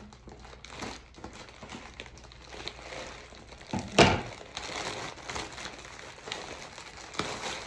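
Plastic poly mailer bag crinkling and rustling as it is handled and cut open with scissors, with one loud sharp crackle about four seconds in.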